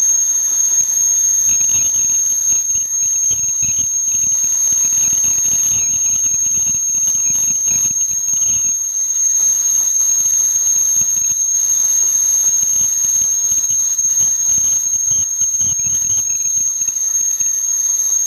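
Conventional metal lathe turning an aluminium ring: a steady high-pitched whine over a hiss, with a fluttering squeal from the cut that comes and goes, for a few seconds at a time.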